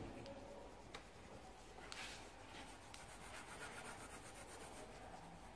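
Faint paper sheets being shifted on the table, then a colored pencil scratching on paper in quick, even back-and-forth shading strokes from about three seconds in.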